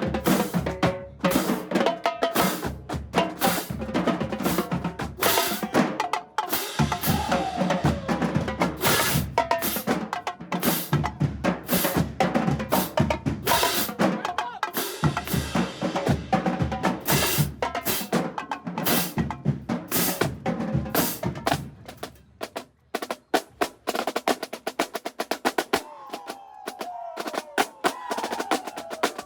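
Marching band drumline playing a street cadence: rapid snare drum rolls and rim shots over bass drums. About two-thirds of the way through it thins out to sparser hits.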